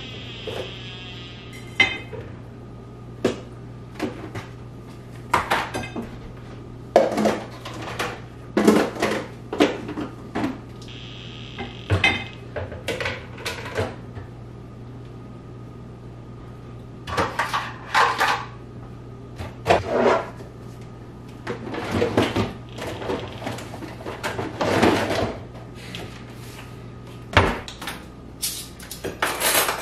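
Kitchen cupboard doors and dishes handled during kitchen clean-up: a string of knocks, clacks and clattering, with a steady low hum underneath.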